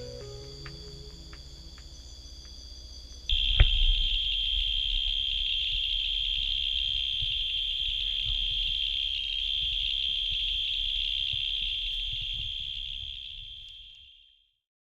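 Soft background music gives way about three seconds in to a steady, high-pitched insect buzz of a single unbroken tone, typical of a cicada, with low rumble and a knock just after it starts. The buzz fades out near the end.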